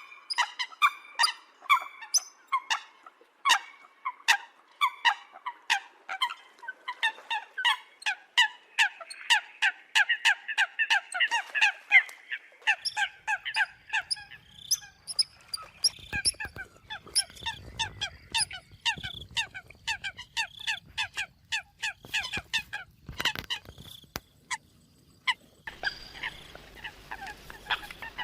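Eurasian coots calling: a fast run of short, sharp, honking calls, several a second, repeated over and over as a bird-lure recording. A low rumble sits underneath from about halfway.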